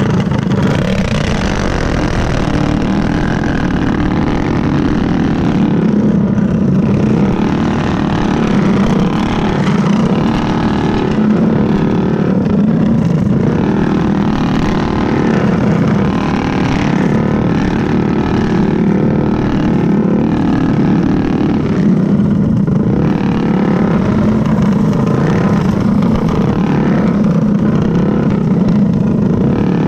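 Stock Predator single-cylinder four-stroke kart engines running hard together in a racing pack, their note rising and falling with the throttle through the turns.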